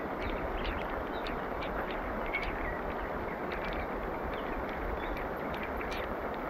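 Steady rain falling on the river and the bankside leaves, an even hiss with scattered ticks of single drops landing close by.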